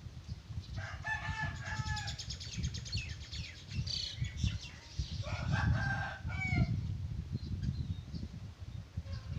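A bird calling twice, each call drawn out for about a second and a half, over a low rumble.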